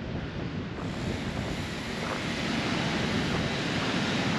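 Wind buffeting the microphone, a steady rushing noise that grows slowly louder.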